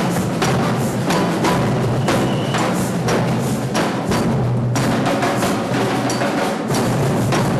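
Percussion group drumming a fast, steady rhythm: deep drums under dense sharp clicks from a wood-block-like instrument.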